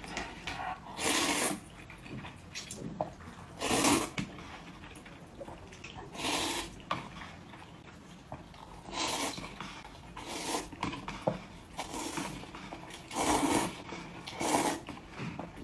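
A person eating close to the microphone in a mukbang, with wet slurping and chewing noises that come in short bursts every one to three seconds.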